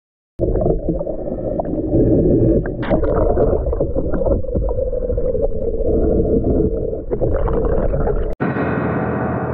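Muffled underwater audio from an action camera held below the surface of a flooded cave passage: low rumbling and gurgling water with scattered knocks. About eight seconds in it cuts off and an edited-in sound-effect sting starts, a ringing tone that slowly fades.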